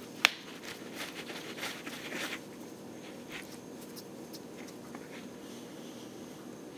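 Handling of a tablet while fingers tap and swipe across its touchscreen: one sharp click about a quarter second in, then faint taps and a soft rustle over quiet room tone.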